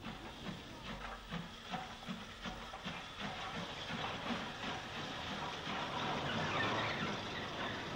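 Steam locomotive working steadily, its exhaust beats coming about three a second over a constant hiss.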